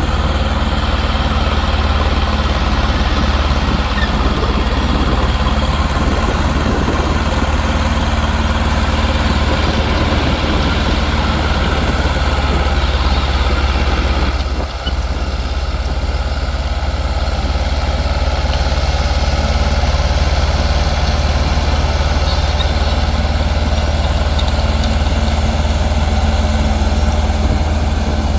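Heavy diesel construction machinery engine running steadily with a deep, continuous drone, briefly dipping about halfway through.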